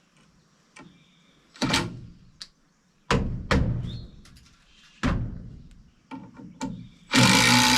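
Four heavy knocks on timber, three of them in the first half and one a little later, each with a short ringing tail, then a power tool, likely a drill, starts running steadily near the end.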